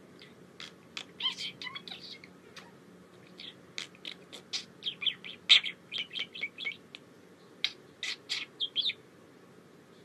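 Budgerigar chirping and chattering: a run of short high chirps and clicks, sparse at first, then a busy stretch in the second half with one loudest chirp in the middle, before it falls quiet near the end.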